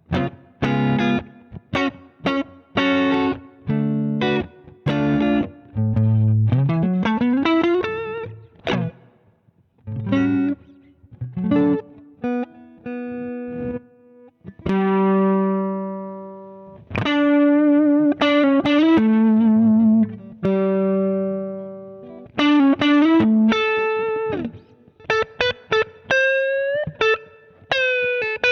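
Electric guitar played through a Zander Circuitry Surplus overdrive pedal. It plays overdriven chords and riffs, slides up in pitch about a quarter of the way in, then holds long notes with string bends and vibrato.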